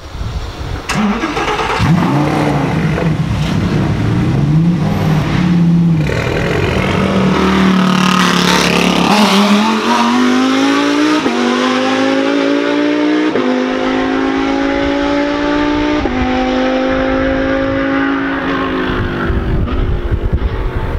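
Lamborghini Huracán GT3's V10 engine revving up and down at low speed, then accelerating away through four upshifts: each gear rises in pitch and drops sharply at the shift. The sound fades as the car pulls into the distance.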